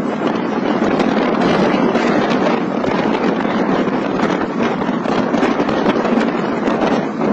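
Strong wind buffeting the microphone in a storm: a loud, steady rushing noise with constant crackle.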